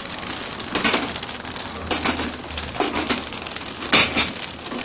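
Flow-wrap packing machine running while wrapping clutch plates in plastic film: four metallic clacks about a second apart, the last one loudest, over a low steady motor hum.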